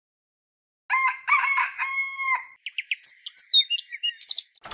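A rooster crowing once, then a run of quick, high bird chirps.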